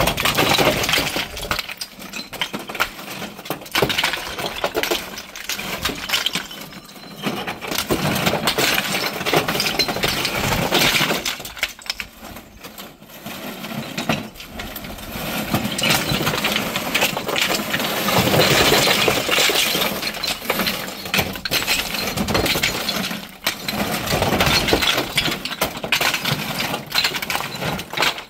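Flat pieces of natural stone cladding clattering and clinking against each other as they are thrown from a truck bed onto a heap of stone, a dense run of knocks with a couple of short lulls.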